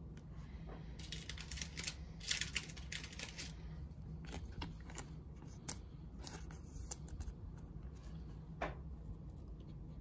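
Thin clear plastic card sleeve crinkling as a trading card is handled and slipped into it, with a cluster of crackles about one to three and a half seconds in, then a few soft ticks of cards being handled.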